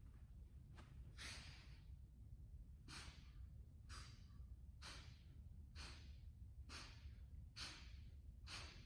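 A man's hard breaths out with the effort of dumbbell crunch reps, short and evenly spaced at about one a second.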